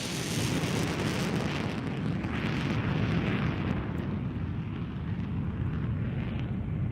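Airplane rumble just after a loud pass: the hiss of the engines thins out over a few seconds while a low rumble carries on.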